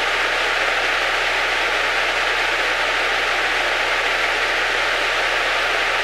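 Steady hiss of static in the aircraft's radio and intercom audio, with a faint steady tone underneath: the radio hissing fault the crew was troubleshooting.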